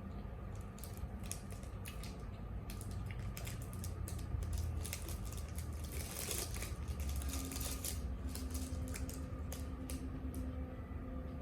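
Close-up eating sounds: irregular small clicks and wet chewing noises, busiest around the middle, over a steady low hum.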